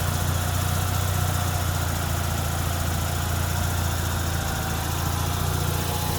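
1990 Mazda RX-7's 13B rotary engine idling steadily, with the air-conditioning compressor engaged during a refrigerant recharge.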